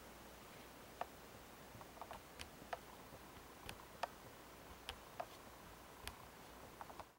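Faint room hiss with about a dozen small, sharp clicks and ticks at irregular intervals.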